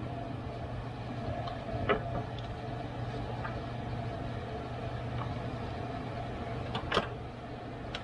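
A few light clicks and knocks of parts being handled at the car's radiator support, the loudest about seven seconds in, over a steady low hum.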